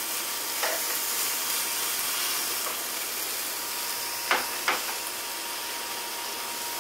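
Chicken pieces sizzling steadily on an electric indoor grill, with two sharp clicks about half a second apart a little over four seconds in.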